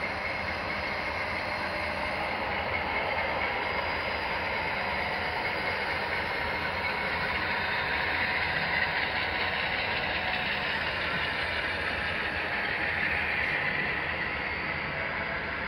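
Model train running past: the model diesel locomotives' motors and gearing whirring and the cars' metal wheels rolling on the rails, a steady mechanical clatter that is a little louder around the middle as the locomotives pass closest.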